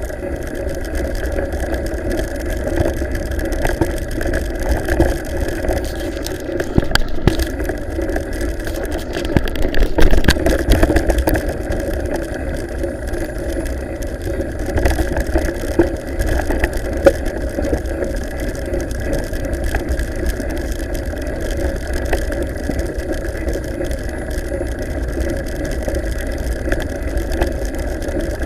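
Steady rumble and rattle of a mountain bike ridden over a cobblestone track, full of small clicks from the bumps, with a low buffet of wind on the microphone. It grows louder for a couple of seconds around the middle.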